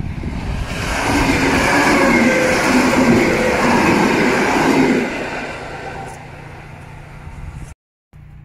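PKP EN71 electric multiple unit passing close by on the rails. It builds about a second in, stays loud for about four seconds, then fades as it moves away, and the sound cuts off abruptly near the end.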